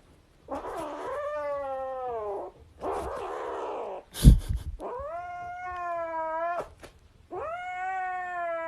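Domestic cat giving three long, drawn-out meows, with a breathy noisy stretch and one sharp loud thump about four seconds in.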